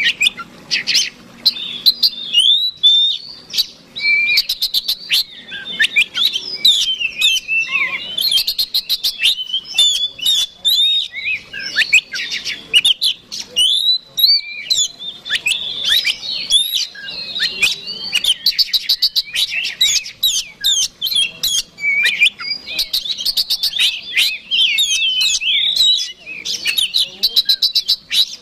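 Oriental magpie-robin (kacer) singing without a break: a fast, varied stream of whistled notes and slides mixed with rapid chattering rattles. This is the bird's combative fighting song.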